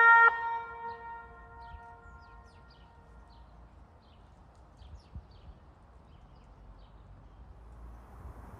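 Kockum Sonics Tyfonic Delta 2 electronic siren sounding the Swiss fire-brigade alarm, the two-tone Cis-Gis signal that calls out firefighters, cuts off about a third of a second in. Its last tone echoes and fades over a second or two, leaving faint outdoor ambience with a few high chirps.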